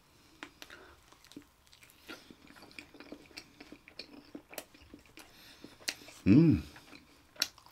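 A person chewing a pan-fried hotteok (Korean sweet pancake), with small wet mouth clicks and crackles scattered throughout. Just past six seconds in comes a short loud hum that rises and falls in pitch.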